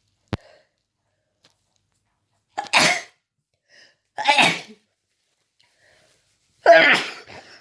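A person with a cold-like illness in a rapid, explosive sneezing fit: three loud sneezes in quick succession, about one and a half to two seconds apart, the last the loudest. A single sharp click comes just before the first sneeze.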